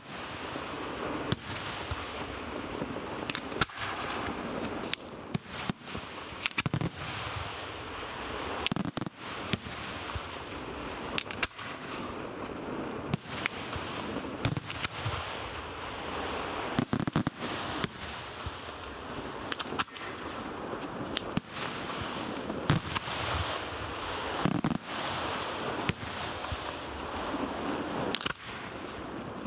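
Aerial firework shells bursting during a display: sharp bangs about once or twice a second at irregular spacing, over a continuous noise of smaller bursts between them.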